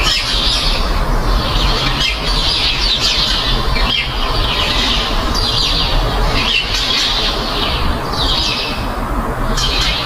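Birds giving high, scratchy squawking calls, repeated about every one and a half seconds, over a steady low rumble.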